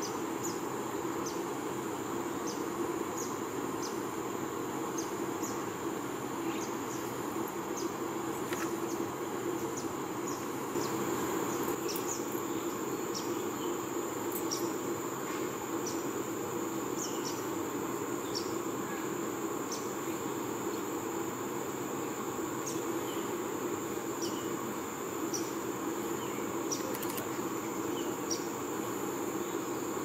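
Steady high-pitched drone of insects in the tree canopy, over a low steady hum. Short high chirps, many of them falling in pitch, come every second or so.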